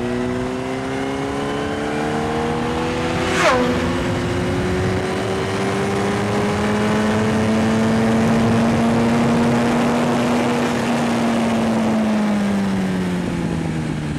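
Yamaha sport bike's engine heard from on board. The revs climb, drop sharply at a quick upshift about three and a half seconds in, then hold steady at speed over a constant rush of wind, and fall away near the end as the bike slows down.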